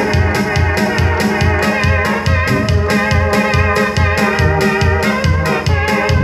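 Roland E-28 electronic keyboard playing sustained organ-like chords over a steady pulsing bass and drum beat, about three beats a second.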